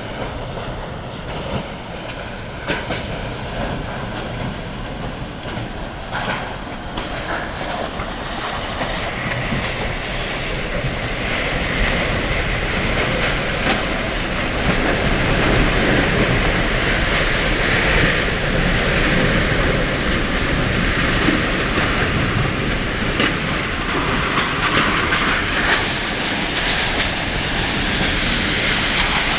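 Storm-force wind blowing hard: a steady rushing roar with no pitch, growing louder about a third of the way in and staying strong. A few short knocks or rattles come in the first several seconds.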